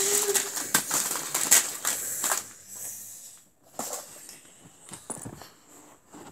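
Lego train crash: plastic bricks and train parts clattering and scattering in a dense rush of clicks that dies away after about two and a half seconds, leaving a few scattered clicks as pieces settle.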